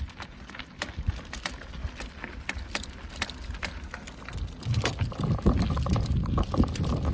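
Movement over a rocky dirt trail: scattered crunches, clicks and rattles, joined about four and a half seconds in by a louder, steady low rumble.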